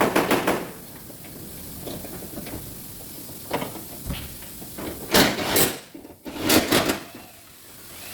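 Metal parts clattering and scraping as they are handled, in several irregular bursts, the loudest about five and six and a half seconds in.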